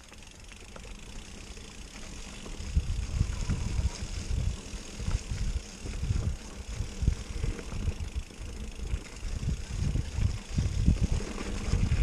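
Mountain bike rolling along a grassy dirt singletrack, heard from a camera on the rider: tyre and trail noise with an uneven low rumble that grows louder about two and a half seconds in.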